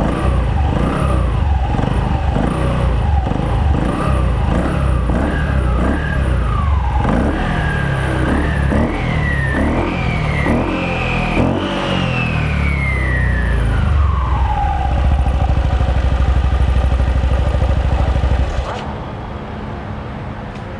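Yamaha NMAX 155 V2's single-cylinder engine running with the CVT cover off, the pulleys and belt spinning in the open, revved again and again in short rising blips. The revs climb to a high peak about halfway through, fall back to a steady idle, and the engine is switched off near the end.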